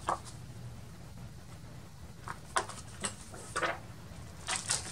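A clear acrylic stamp block and a paper card being handled on a cutting mat: a handful of short, light scrapes and taps spread through, the last a quick cluster of scratches.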